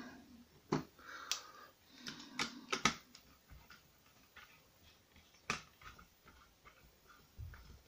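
Scattered small clicks and taps of a small screwdriver and parts on a 3D-printed plastic prop pistol as its screws are put in, the sharpest clicks about three and five and a half seconds in.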